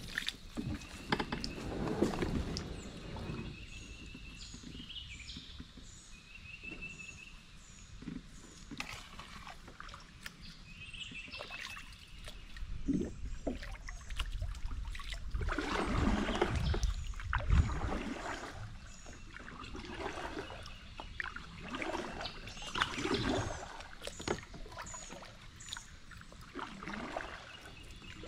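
Kayak paddle strokes swishing and splashing through river water at intervals, with birds singing in the trees: repeated short high chirps and a few brief trills.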